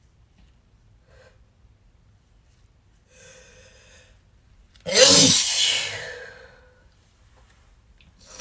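A person sneezes once, loud and sudden, about five seconds in, preceded by a voiced catching inhale about two seconds earlier. Faint breaths are heard around it.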